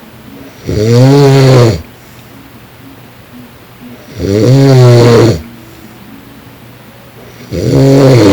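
A man snoring loudly: three snores about three and a half seconds apart, each lasting about a second with a pitch that rises and then falls. The last snore is still going at the end.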